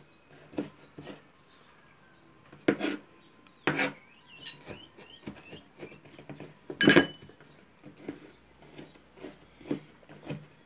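Kitchen knife knocking on a plastic cutting board as garlic and onion are minced: scattered, irregular knocks, the loudest about seven seconds in.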